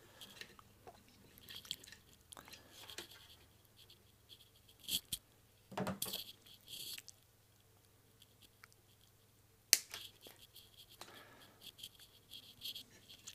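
Faint, scattered rustling and crinkling of hands handling wire and small parts, with a few sharp clicks, the loudest a little under ten seconds in.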